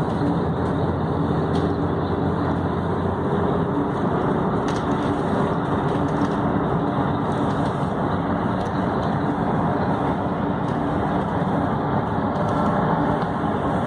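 Steady road noise heard from inside a moving car at highway speed: tyres rumbling on the pavement with a low engine hum.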